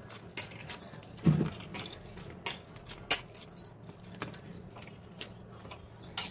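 Oiled hands pressing and setting thick cooked besan (gram-flour) paste into a greased thali, giving scattered light clicks and metallic clinks, with a duller thump just over a second in.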